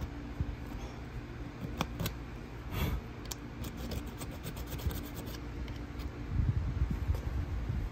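A thin blade scraping and rubbing in the slots between the copper commutator segments of a Hitachi S12-88 12 V starter motor armature, clearing out debris, with scattered small clicks. Foreign matter between the segments keeps the starter from reaching its full speed.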